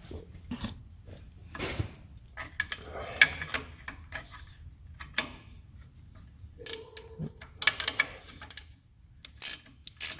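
Socket ratchet clicking in short, irregular runs with metal clinks, as bolts are tightened to set the fan belt tension at the alternator.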